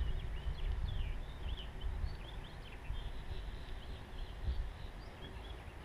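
Birds chirping, many short quick calls, over a steady low rumble of wind and rolling from a bicycle moving along a sandy road.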